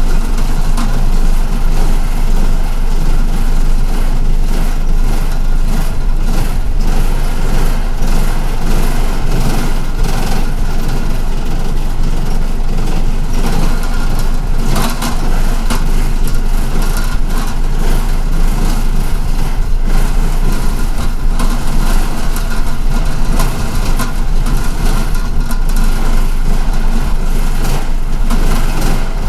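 MTA city bus running, heard from inside the passenger cabin: a steady engine drone with road and cabin rumble.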